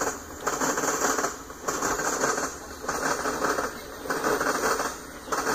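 Freight train tank cars rolling past, steel wheels clattering over the track in a steady repeating rhythm, a burst of clicks about every second and a quarter as each set of trucks goes by.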